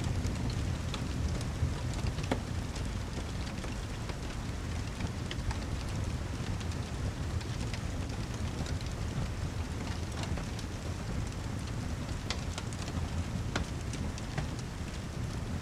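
Steady heavy rain ambience with a deep low rumble, dotted with scattered sharp clicks and ticks.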